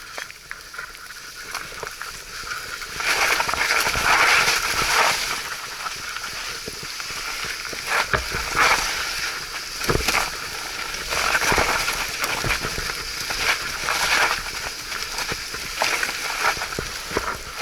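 Mountain bike tyres rolling through mud and puddles, sloshing and splashing, with frequent sharp knocks from the bike over rough ground. The noise swells from about three seconds in.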